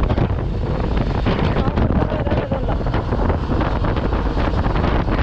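Wind buffeting the microphone of a moving motorcycle, a steady rushing roar with the bike's engine and road rumble underneath.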